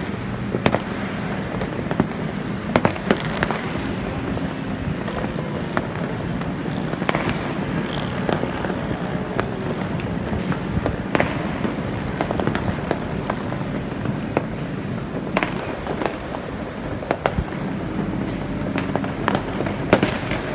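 Fireworks going off continuously: a dense, steady wash of many bangs and crackles, with louder single bangs standing out every second or two.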